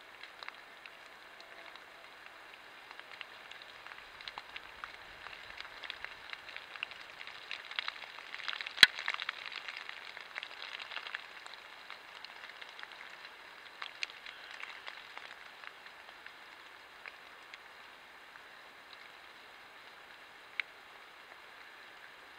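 Scattered crackles and ticks of dry leaves and sticks as a black bear shifts in its bed, busiest in the middle, with one sharp snap about nine seconds in.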